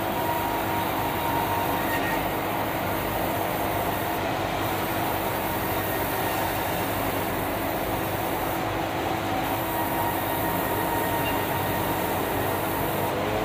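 Large sawmill band saw and its machinery running steadily without cutting, a continuous even mechanical noise with a faint steady whine.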